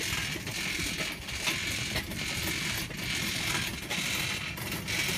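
Pedal-driven cardboard car on bicycle wheels rolling along a concrete lane, its chain drive and wheels giving a continuous mechanical rattling and clicking.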